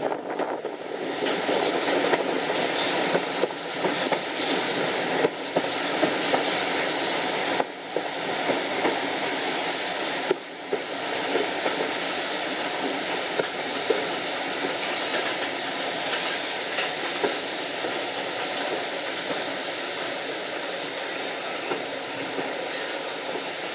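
Passenger carriage running along the line, heard from an open window: a steady rush of wheel and wind noise with occasional sharp clicks, more of them in the first half.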